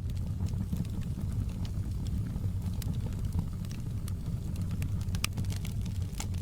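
Wood fire in a fireplace crackling: scattered sharp pops and snaps over a steady low rumble of the flames.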